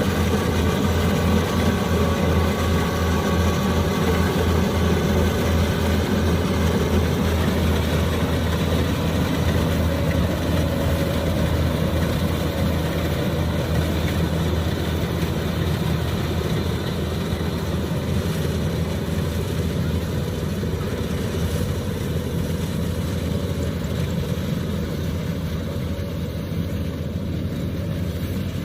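Kubota combine harvester running steadily, its engine and threshing machinery making a continuous drone that slowly grows a little quieter over the second half.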